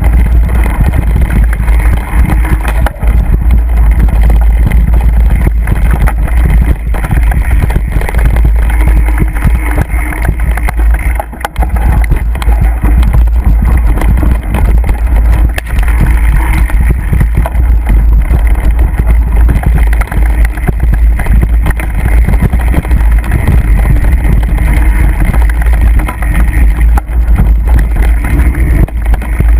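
Mountain bike riding over a rough, grassy trail, heard through a camera carried on the ride: a loud, steady rumble of wind buffeting and jolting on the microphone, with tyre and rattle noise.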